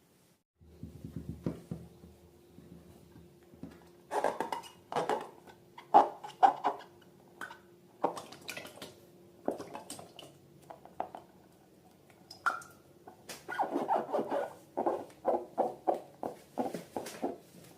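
Slime being squished and worked by hand, giving irregular clusters of short wet, sticky squelches and crackles over a faint steady hum.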